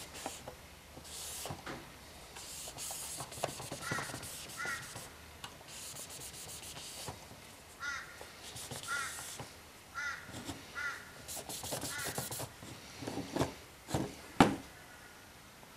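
Short bird calls, repeated in little runs about a second apart, over rubbing and clicking as hands handle a plastic car instrument cluster on a table, with one sharp knock near the end.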